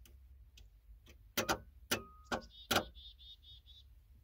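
Automatic battery isolator's relay clicking several times in quick, uneven succession while it is being wired up: it is already energised and trying to switch. A brief steady tone and a short high warbling trill sound between the clicks.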